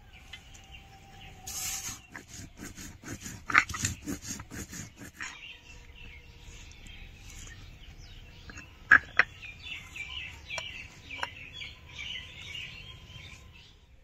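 Dried red chillies being ground by hand on a grinding stone: a run of rhythmic scraping strokes for the first few seconds, then a few sharp knocks. Small birds chirp through the second half.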